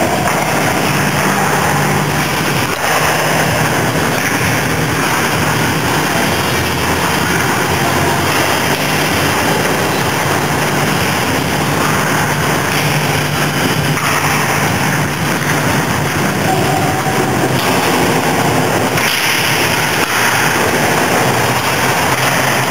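Steady loud hum and hiss of indoor ice-rink machinery, with a low drone throughout and a few faint knocks from hockey sticks and skates on the ice.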